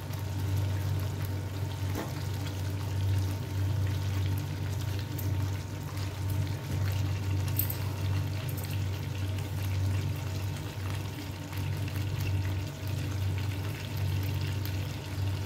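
Chicken pieces cooking in hot ghee and spice masala in a pan: a soft sizzle with occasional crackles over a steady low hum.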